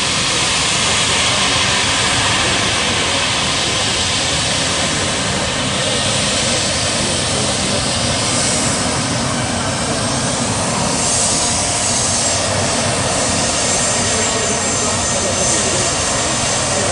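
Turbofan engines of an Embraer regional jet taxiing past, a loud, steady jet engine noise that holds through the whole passage.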